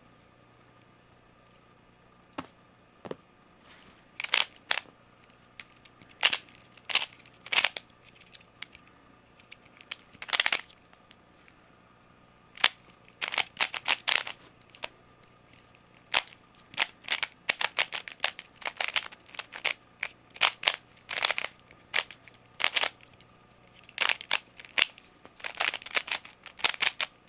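Concave 3x3 twisty-puzzle cube on a Dayan Guhong mechanism being turned fast during a solve: quick runs of sharp plastic clicks and clacks as the layers snap round. It starts after a couple of near-silent seconds, and the turning gets busier about halfway through.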